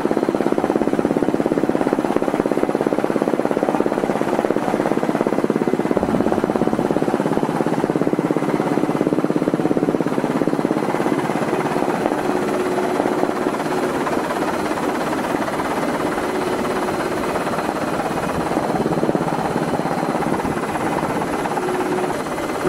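Helicopter engine and rotor noise, a steady dense drone with no let-up.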